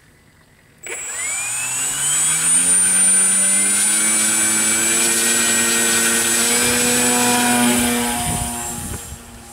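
Electric motor and propeller of an E-flite Beaver RC model plane (E-flite Power 45 brushless motor) starting suddenly about a second in with a rising whine, then holding a steady high whine at full throttle. The whine fades near the end as the plane flies away after a hand launch.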